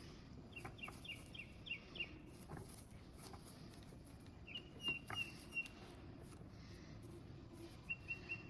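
A small bird chirping faintly in three quick runs of short, even notes at one high pitch, with a few faint clicks between them.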